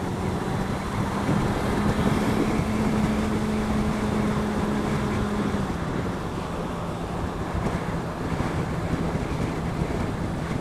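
Wind rushing over the helmet camera's microphone while riding, over the steady drone of a Suzuki Bandit 650's inline-four engine. The engine note drops slightly about six seconds in.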